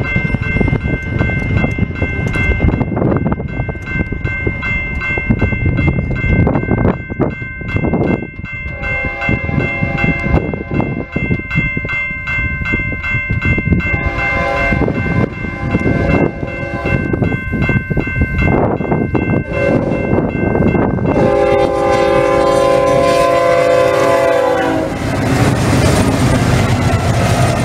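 BNSF GE diesel locomotives approaching and sounding their air horn in several blasts, the last one long and loud starting about three quarters of the way in, then passing close with a loud rumble of engines and wheels near the end. A steady high ringing with a fast beat, typical of a grade-crossing bell, runs under the first part and stops before the last horn blast.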